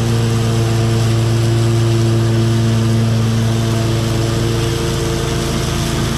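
Zero-turn riding mower engine running steadily with the blades cutting tall wet grass. It gives an even hum that holds its pitch under the load, with no bogging.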